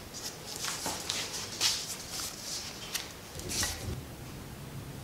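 Soft, scattered taps, clicks and rustles of hands fitting a metal bar-end plug into the end of a bicycle's bar-taped drop handlebar. A faint low hum comes in near the end.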